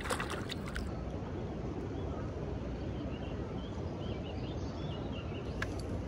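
River water rushing steadily over rapids, a constant even noise.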